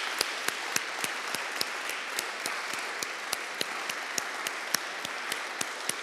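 Audience applauding steadily, a dense wash of clapping with single sharper claps standing out about three times a second.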